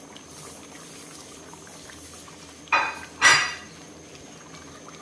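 Two short clatters of kitchenware, about half a second apart near the middle, over the faint steady simmer of a pot of beef kurma.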